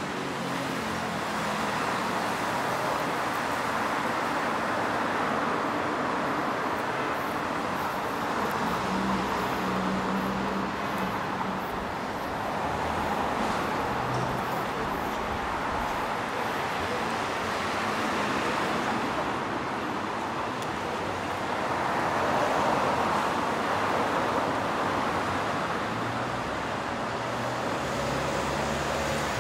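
Road traffic on a city street: cars and a bus passing, the noise swelling and fading every few seconds.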